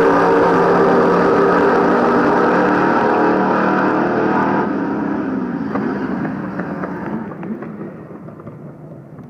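V8 drag cars at full throttle down the strip, their exhaust note fading steadily as they pull away.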